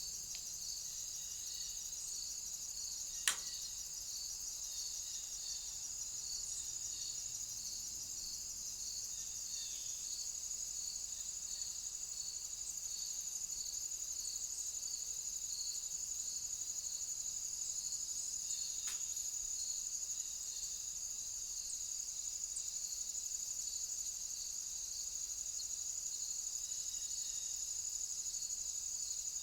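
Crickets chirping in a steady high-pitched chorus, with a second insect sounding in regular pulses just beneath it. A single sharp click about three seconds in, and a fainter one later.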